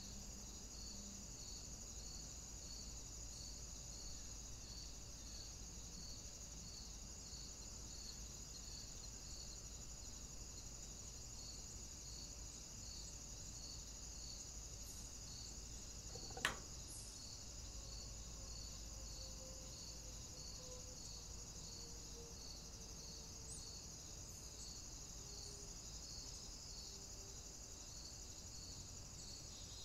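Faint steady insect chorus with a regular pulsed chirp a little over once a second, and a single sharp click about halfway through.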